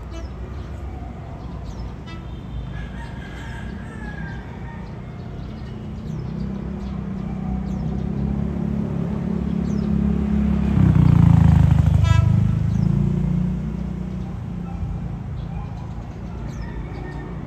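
Rumble of an approaching commuter train's engine, building to its loudest about two-thirds of the way through and then easing. A rooster crows early on.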